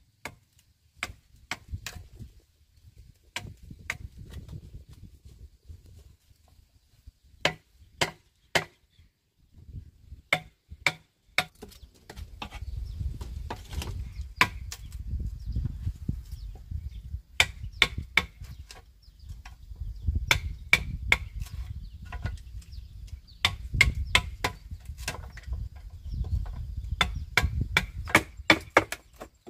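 Wooden mallet striking a chisel, cutting a slot into a bamboo post: sharp knocks at irregular intervals, sometimes in quick runs, with a low rumble underneath from about twelve seconds in.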